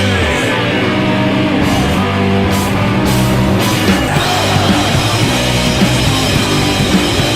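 Punk rock band playing a rehearsal demo: guitar, bass and drums. A note slides downward at the start, and the cymbals drop back before the full kit comes back in about four seconds in.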